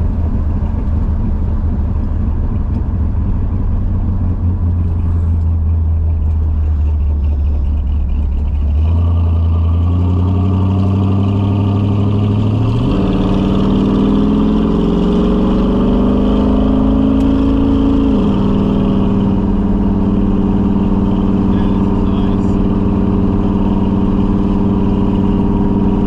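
1968 Dodge Charger's V8 engine and exhaust under way, running low and steady at first, then louder as it accelerates. The pitch rises, drops sharply as it shifts up, then holds steady.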